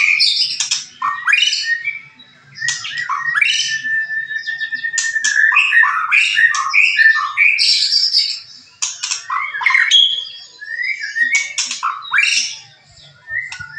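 A songbird singing a loud, varied song of rapid chirps and whistles, with a held whistled note a few seconds in. The song breaks off briefly about two seconds in, again around eight and a half seconds, and near the end.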